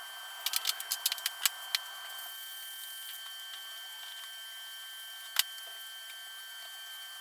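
A quick run of about eight light clicks and clinks as black iron pipe fittings are handled and set down, then a single sharper knock a few seconds later, over a steady background hiss.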